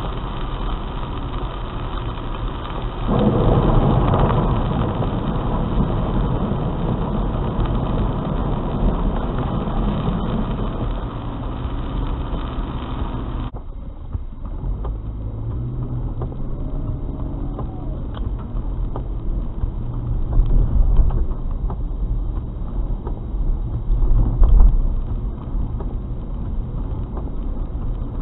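Car driving through heavy rain, heard from inside the cabin: rain on the roof and windshield and tyres hissing on the wet road, with the engine low underneath. It gets louder about three seconds in, drops off abruptly about halfway through, and has low surges near the end.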